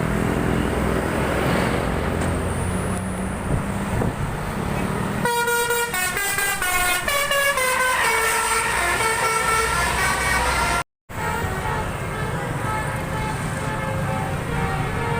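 Bus engines running with a low rumble, then about five seconds in a bus's telolet horn plays a quick run of changing musical notes for several seconds. The sound drops out for a split second just before eleven seconds, then engine noise resumes with fainter horn tones.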